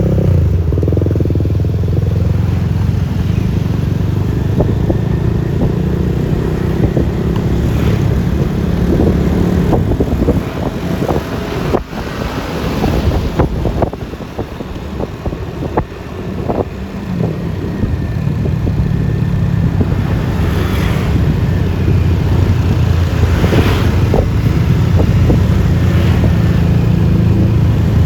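Yamaha Lexi LX 155 scooter's single-cylinder engine running under way, with road and wind noise. The drone drops back for several seconds around the middle, with scattered ticks, then picks up again.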